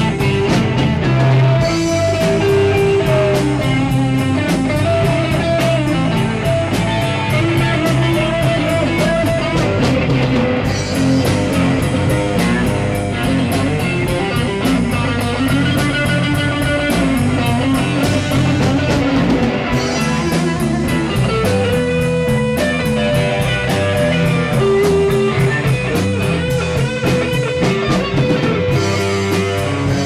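Live rock band playing at full volume: electric guitar over bass, a drum kit and keyboard.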